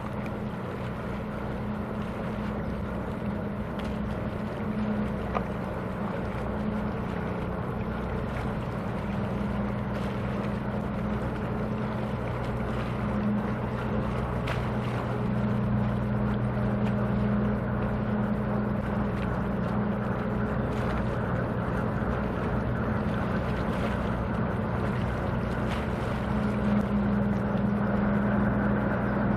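Engines of a 65 m car ferry running with a steady low drone while it manoeuvres alongside the quay to berth, growing a little louder as it comes in.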